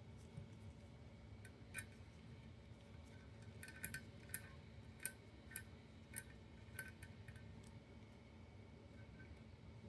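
Scattered light clicks and taps of small metal gun parts and tools being handled during pistol disassembly, about a dozen, most of them in the middle, over a faint steady hum.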